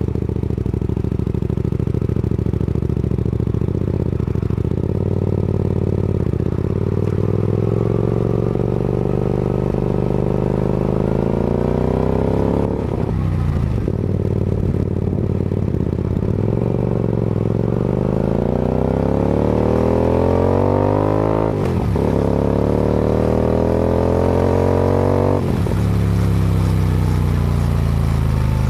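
Hyosung GT250R's 250 cc V-twin through a Musarri slip-on exhaust. It runs steadily at first, then accelerates under way, the pitch climbing through the gears and dropping sharply at three upshifts.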